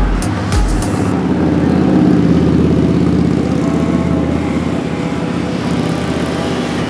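A music beat cuts out about a second in, giving way to a boat engine running steadily with a fast low throb.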